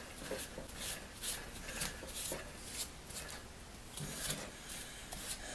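A gloved hand wiping and rubbing over the metal and plastic housing of a Skil rotary hammer with a rag during cleaning. The sound is a series of short, faint scratchy rubbing strokes, about two a second.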